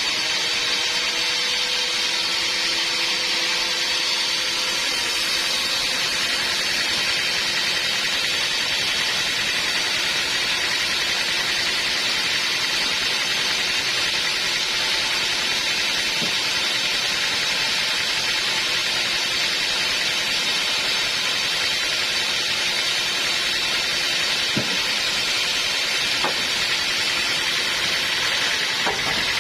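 Sawmill saw machinery running steadily, a continuous even noise with no break.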